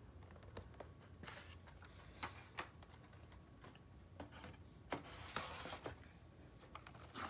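Faint handling noises of carded Hot Wheels cars and a cardboard box: scattered light clicks and soft rustles as the blister cards are moved and set on a display rack.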